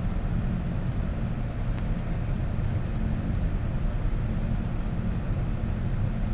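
Steady low rumble with a light hiss: background noise picked up by the narrator's microphone, with no other sound over it.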